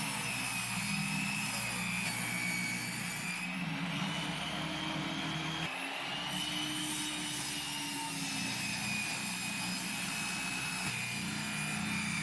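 Power saw running and cutting 3/4-inch plywood, its whine wavering in pitch as it cuts, with an abrupt break about six seconds in.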